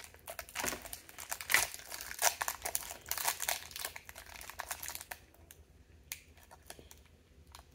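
Crinkling and rustling of a small plastic blind-bag wrapper being worked open by hand: dense crackling for the first few seconds, then only a few scattered crackles near the end.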